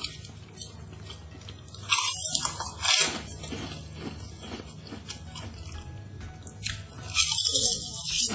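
Close-miked eating sounds: a person biting and chewing food, with two louder wet, noisy bursts, one about two seconds in and one about seven seconds in, over quiet background music.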